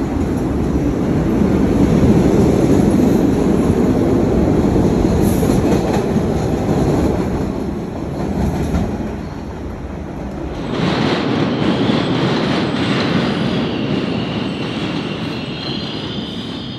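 MBTA subway train running on the rails, a heavy low rumble for about the first ten seconds that then thins out. In the last few seconds a high steady wheel squeal comes in.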